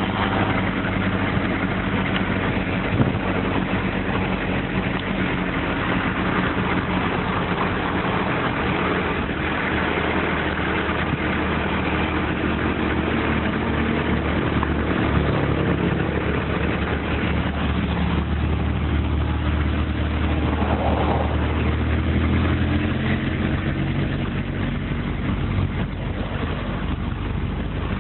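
A vehicle's engine and road noise heard from inside as it drives along. It is a steady hum with a low engine drone that changes pitch a little about halfway through.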